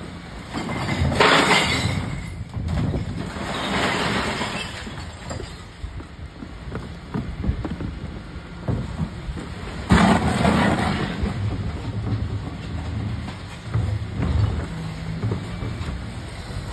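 Recycling refuse truck running with its rear Terberg bin lift working, a steady low engine rumble under loud bursts of clattering and banging as wheelie bins are lifted and tipped into the hopper. The bursts come about a second in, around four seconds in and about ten seconds in.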